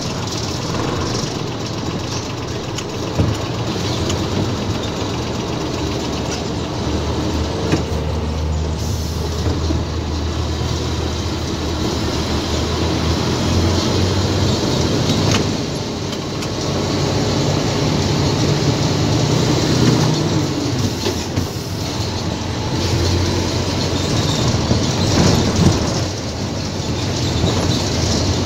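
Diesel engine of an Isuzu GXZ tractor truck running as it pulls a trailer loaded with heavy steel coils, heard from inside the cab. The low engine note swells and eases as the truck moves off along the street.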